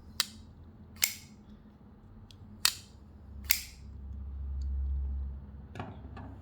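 Zero Tolerance 0562 flipper knife on bearings being flicked open and snapped closed: four sharp metallic clicks at uneven spacing of about a second, then two softer clicks near the end, with a low rumble in the middle.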